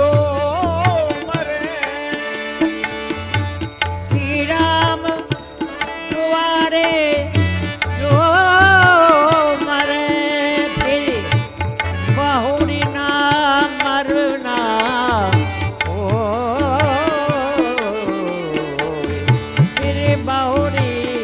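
Instrumental stretch of a devotional bhajan: tabla keeping a steady beat under held drone notes and a melody line that slides and wavers.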